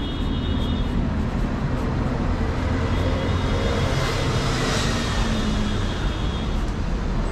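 City street traffic noise, with a vehicle passing that swells to a peak about five seconds in and then fades.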